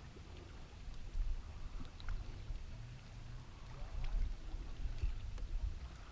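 Water lapping and slapping against the hull of a small fishing boat, with a fluctuating low rumble and a few faint clicks.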